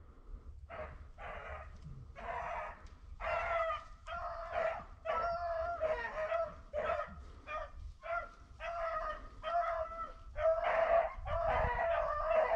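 Beagles baying on a rabbit's trail: a steady run of short, repeated bays, about two a second, coming thicker and louder toward the end.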